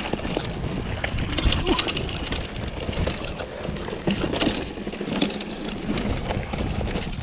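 Giant Trance full-suspension mountain bike riding over a rocky, rooty dirt trail: tyres crunching on dirt and rock, with frequent irregular clattering knocks and rattles from the bike.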